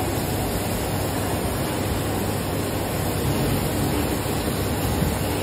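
Injection moulding machine running: a steady mechanical drone with a low hum under an even hiss.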